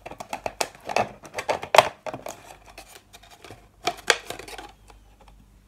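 A thin plastic soda bottle crackling and crinkling in the hands while a hole is poked through it: irregular clicks and crackles, louder in two clusters and quieter near the end.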